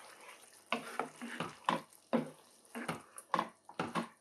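Wooden spoon stirring yogurt into thick chicken curry sauce in a large pan: a run of about a dozen quick, wet scraping and slopping strokes at an uneven pace, starting under a second in.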